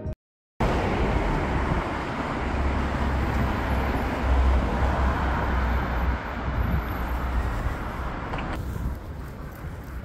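City street traffic: cars passing steadily, with a deeper engine rumble swelling in the middle. It starts after half a second of silence and turns quieter and duller near the end.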